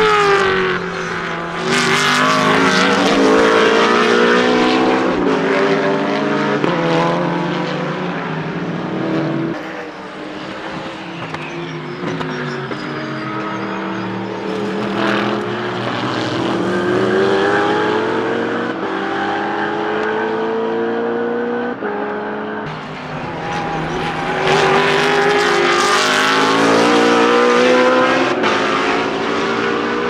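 BMW Z4 GT3's 4.4-litre V8 race engine at full throttle, its pitch climbing through the revs and dropping sharply at each upshift as the car passes. It is loudest near the start and again in the last few seconds.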